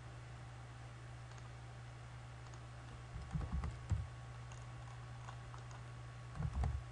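Computer mouse clicks and scroll-wheel handling on a desk, in two short clusters of soft thumps and clicks, about three seconds in and again near the end, over a steady low electrical hum.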